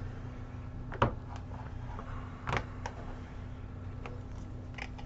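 A few light taps and clicks from fingers handling an iPad and its freshly applied screen protector, the two loudest about a second and two and a half seconds in, over a steady low hum.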